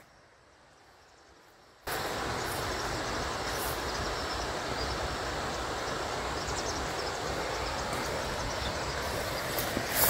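After a near-silent first two seconds, a steady rush of running water from streams flowing after heavy rain comes in abruptly and holds evenly.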